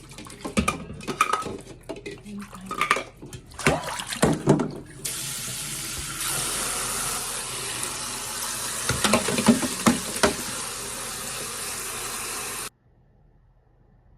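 Dishes and utensils clatter in a kitchen sink. Then a tap runs steadily into the sink, with more clinks of dishes under the stream, and the water stops suddenly near the end.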